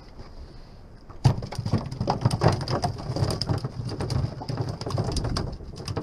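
Close handling noise from hands working with a fish and fishing tackle right at a chest-mounted camera: dense rustling and crackling with small knocks, starting about a second in, over a steady high hiss.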